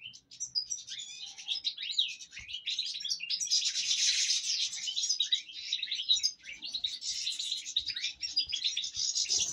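European goldfinches twittering: a dense run of quick, high chirps and trills, busiest a few seconds in and again near the end.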